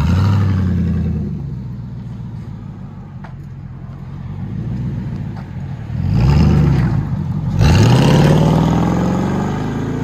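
Pickup truck's engine through a modified dual side-exit exhaust, revving and then accelerating as the truck drives off: a swell just after the start, a rise and fall about six seconds in, then a steadily climbing engine note from about eight seconds on.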